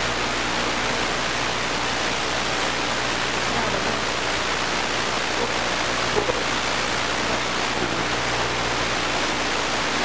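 Steady, loud hiss with a faint low hum underneath, unchanging throughout: noise in the recording itself, the fault behind the video's 'bad sound', which covers the quiet handling of the tent.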